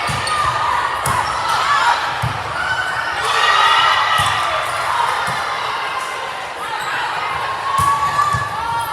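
Indoor court game play in a large hall: ball hits and thumps ringing off the walls, with sneakers squeaking on the court and players calling out.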